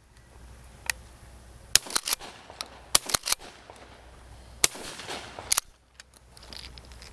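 Shotgun shots fired at doves: a string of sharp cracks, three louder reports spread over about three seconds with smaller cracks between them, some trailing off in a short echo.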